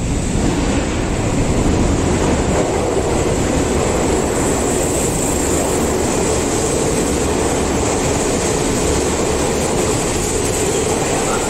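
Eight-car subway train, a Toei 6500-series set, approaching through the tunnel and running into an underground platform: a steady rumble of wheels and motors with hiss, echoing in the station.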